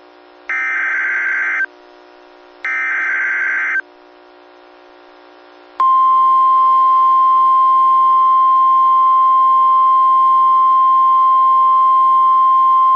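Two bursts of EAS (SAME) digital header data, a raspy warbling squeal about a second long each and a second apart, that encode an incoming alert. About six seconds in, NOAA Weather Radio's single steady 1050 Hz warning alarm tone starts and holds, signalling that a warning follows.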